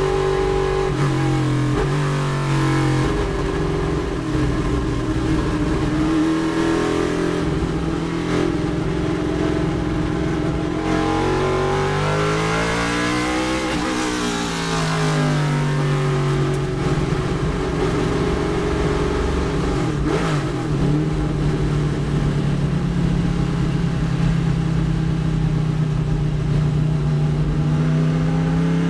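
Chevrolet Nova race car's engine running hard under racing conditions, heard from inside the cockpit. Its note holds, then falls and rises again several times, sweeping down and back up most clearly around the middle.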